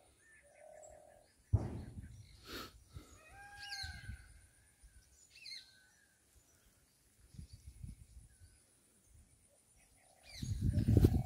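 Wild birds calling, with short chirps and gliding whistles in the first half. There is a sudden thump about a second and a half in. Near the end come loud rustling footsteps through grass.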